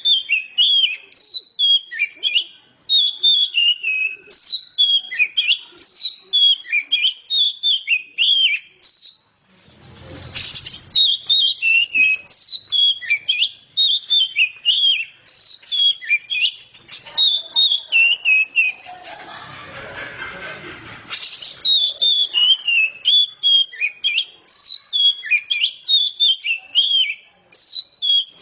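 Oriental magpie-robin (kacer) singing a long, unbroken run of quick, varied whistled phrases. Two short bursts of noise cut across the song, about a third of the way in and again about two-thirds in.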